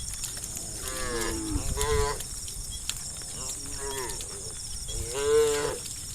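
Cows mooing, about four drawn-out calls from the herd, the loudest near the end.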